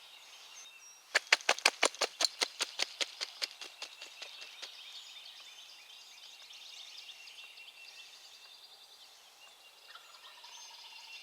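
A quick run of about twenty sharp taps, roughly six a second, loudest at the start and fading away over three and a half seconds, over steady songbird chatter. Near the end a faint, distant wild turkey gobble.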